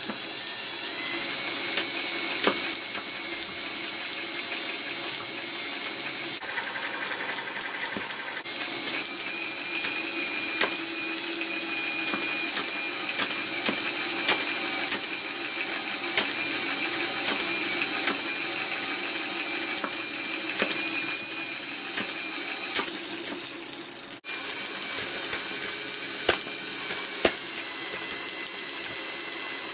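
Electric drive spinning a LEGO two-stroke model engine while its bug-zapper-fed spark plug ticks rapidly and unevenly over a steady electric-motor whine. The whine steps up in pitch about eight seconds in and drops back near 23 seconds. The engine is not firing consistently on its premixed petrol, so most of the ticks are spark alone, not combustion.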